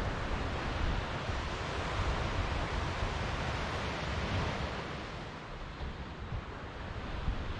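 Ocean surf: a wave breaks and washes up the beach, swelling about two seconds in and easing off after about five seconds. Wind rumbles on the microphone underneath.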